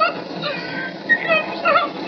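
A man's high-pitched whimpering cry: several short, wavering whines over a steady hiss.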